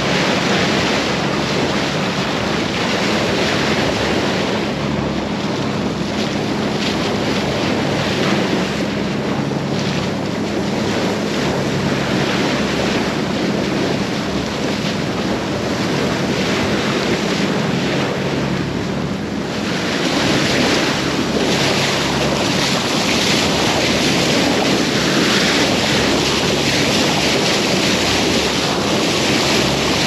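Boat engine running steadily under way, a low drone under the rush of water along the hull, with wind buffeting the microphone.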